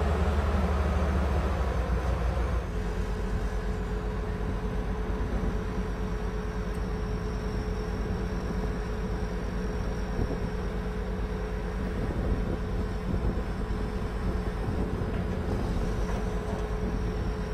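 Tigercat 1055 forwarder's diesel engine running steadily. About two and a half seconds in, the deep drone eases and a steady whine comes in and holds.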